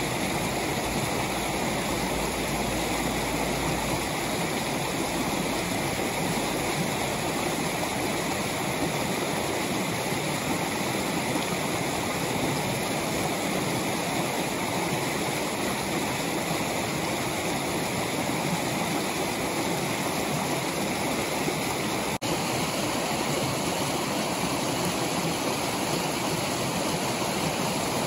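Shallow mountain river running steadily over rocks, the rush of water spilling through a rocky riffle into a pool.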